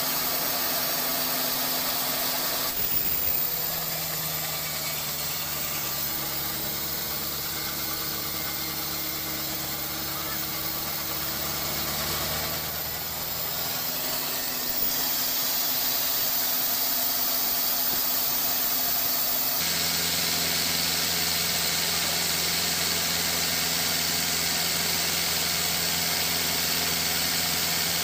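Industrial sawmill machinery running with a steady hum. Its tone shifts abruptly a few times, about 3, 15 and 20 seconds in.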